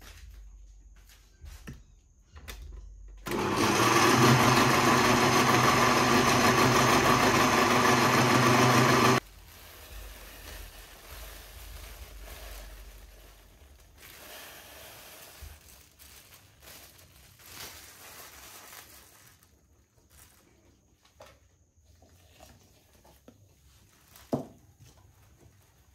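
Electric kitchen blender running at one steady speed for about six seconds, switched on and off abruptly. Softer kitchen handling noises and a knock follow.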